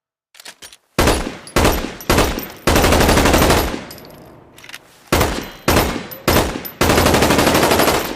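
Magpul PDR-C bullpup rifle gunfire: three single shots, then a full-auto burst of about a second, three more single shots, and a longer full-auto burst near the end. A few faint mechanical clicks come just before the first shot.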